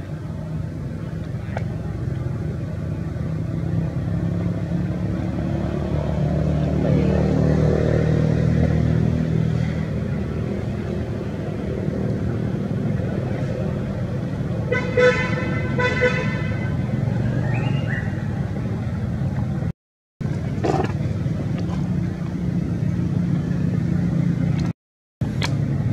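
Steady low drone of a motor vehicle engine running, with two short horn toots in quick succession about fifteen seconds in. The sound cuts out completely twice for a moment near the end.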